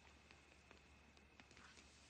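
Near silence: faint night-time background with a thin, steady high tone and a few faint ticks.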